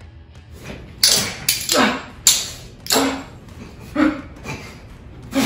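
Staged fight blows: a quick series of about seven sharp hits, each trailing off, some close together.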